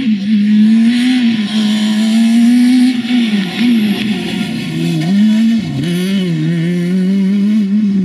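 Fiat Punto Super 1600 rally car's naturally aspirated 1.6-litre four-cylinder engine driven hard at high revs. Its note holds high, then dips and climbs back a few times in the middle as the throttle comes off and on again.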